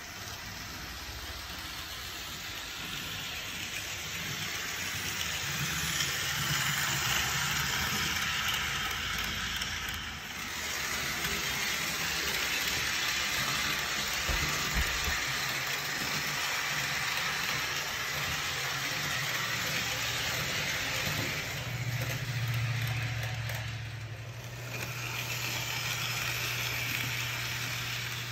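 Electric model steam locomotive and its cars running along shelf-mounted track: a continuous rushing hiss that swells and fades twice as the train passes, with a steady low hum joining in near the end.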